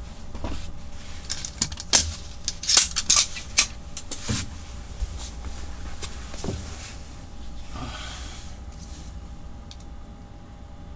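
A quick series of sharp clicks and knocks of hard objects being handled on a desk, the loudest about two to three and a half seconds in, then only faint room noise with a low steady hum.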